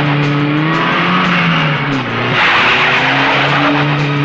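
Car engines running hard at high revs, their pitch sagging and rising with throttle and gear changes, with a burst of tyre screech a little past two seconds in.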